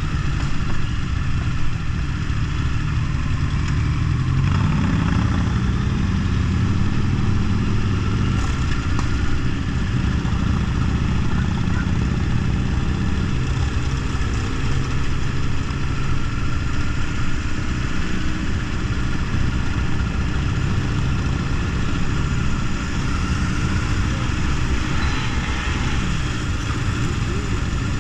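Motorcycle engine running steadily, heard from on board a sport bike riding slowly in a group of motorcycles, with a brief change in revs about four seconds in.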